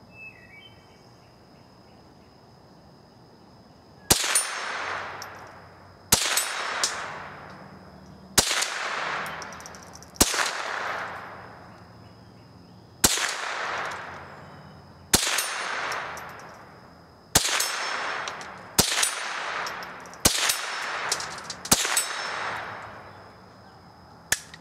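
Glenfield/Marlin Model 75C .22 rimfire semi-automatic carbine firing ten shots of high-velocity ammunition at an uneven pace, 1.5 to 3 seconds apart. Each sharp crack is followed by about a second of echo dying away. A single lighter click comes after the last round.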